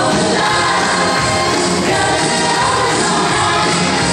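Latin dance music with singing, played loud over a sports hall's sound system.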